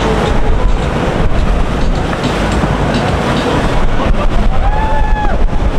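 Loud, steady low rumble of a motorboat under way, with wind buffeting the microphone and water rushing past the hull, and a short pitched call about five seconds in.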